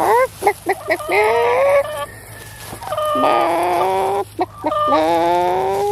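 Chickens calling: a quick run of short rising clucks, then three long drawn-out calls. The last call rises in pitch.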